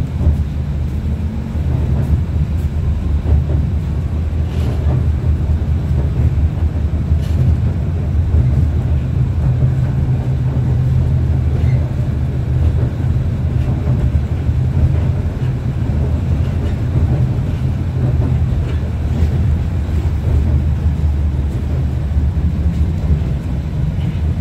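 A 71-631-02.02 tram running between stops, heard from inside the passenger cabin: a steady low rumble from the motors and wheels on the rails, with a few faint clicks.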